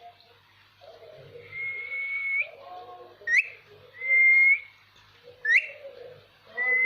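Ringneck parrot whistling: level, held whistled notes alternating with short, sharp upward-swooping whistles, three long notes and two swoops.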